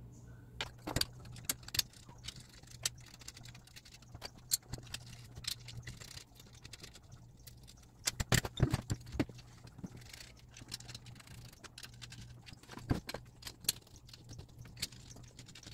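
Small steel screws and metal parts clicking and clinking as they are handled and metal leg brackets are fitted to the engraver's frame, with a cluster of louder knocks about eight seconds in and again about thirteen seconds in. A faint steady hum lies underneath.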